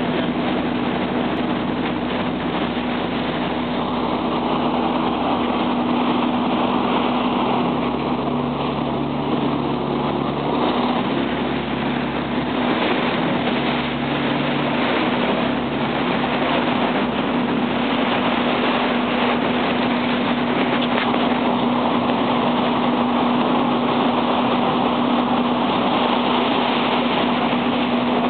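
Passenger ferry's engine running steadily underway: a constant hum with a noisy rush of water and wind over it.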